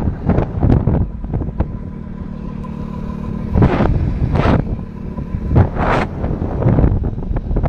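Motorcycle riding along a road with wind buffeting the microphone: a steady engine hum under repeated gusts of wind noise, the loudest coming about halfway through and again a second or two later.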